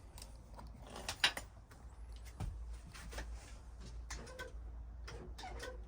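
Irregular mechanical clicks and light creaks, about a dozen, from the motorcycle's rear brake pedal being pressed and released to test the newly fitted brake light switch. The loudest click comes about a second in.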